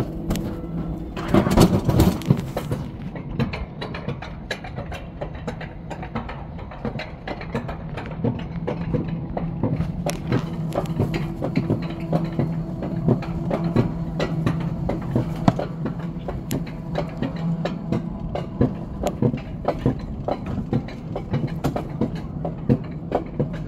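Alpine coaster sled being hauled up the lift section of its steel track: a steady run of clattering and clacking over a low steady hum. A brief louder rush of noise comes about a second and a half in.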